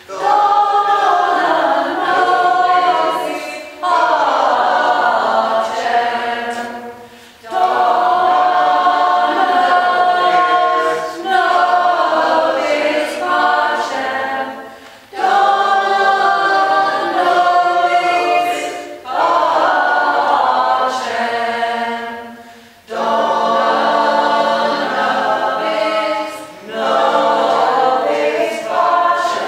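Small community choir of mixed men's and women's voices singing a cappella, in repeated phrases a few seconds long with short breaks between them.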